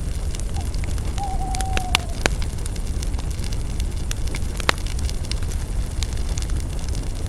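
Campfire of burning spruce branches crackling, with scattered sharp pops over a steady low rumble. A faint, slightly falling whistling tone sounds for about a second, a little over a second in.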